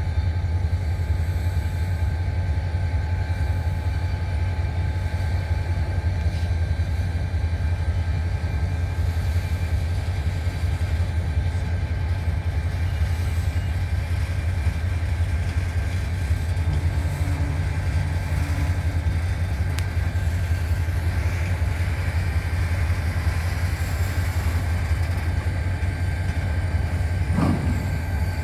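Autorack cars of a Norfolk Southern freight train rolling slowly through a curve during a shoving move: a steady low rumble with thin steady high ringing tones over it, and a short squeak near the end.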